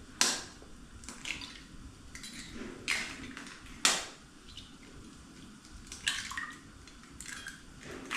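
Chicken eggs being cracked one after another: about six sharp taps of shell against the rim of a bowl, the loudest about four seconds in, with the wet drop of egg into the bowl.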